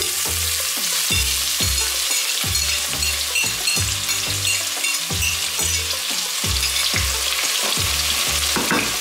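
Diced red onion sizzling in hot coconut oil in a pot, a steady frying hiss, as the onion is scraped in off a plate.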